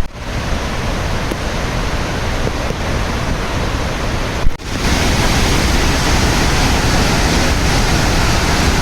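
Waterfall: a steady, loud rush of falling water. About four and a half seconds in it breaks off for a moment, then comes back a little louder.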